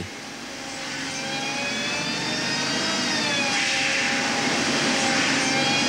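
Large snow-effect fan running: a steady rush of air with a whining motor tone, getting louder over the first couple of seconds, the pitch dipping slightly about three seconds in.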